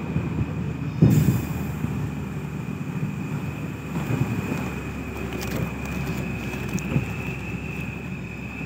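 Vehicle driving slowly over a rough dirt road, heard from its loaded roof: a steady low rumble with a thin high whine, and sharp knocks as it jolts over bumps, the loudest about a second in.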